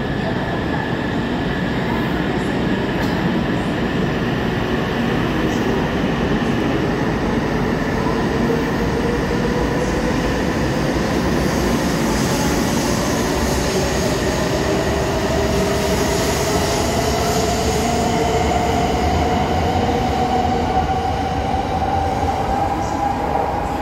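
E2 series shinkansen pulling out of a station and gathering speed: its traction motors give a whine that climbs steadily in pitch as it accelerates, over the steady running noise of the cars passing along the platform.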